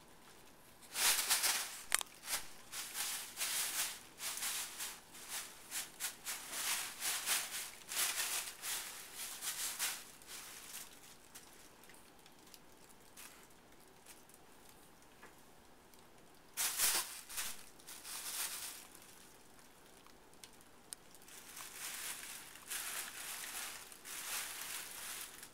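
Plastic shopping bags rustling and crinkling in irregular bursts as a cat paws, pushes and burrows through a pile of them, with a few quieter stretches between.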